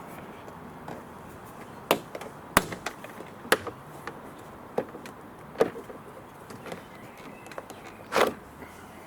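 Irregular sharp clicks and knocks from hands-on work on a Peugeot 308 front door, about ten in all, with a longer, louder knock near the end.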